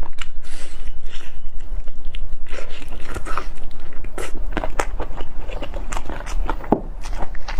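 Close-up eating sounds: biting and chewing food, with a quick run of sharp, crackly mouth clicks and crunches.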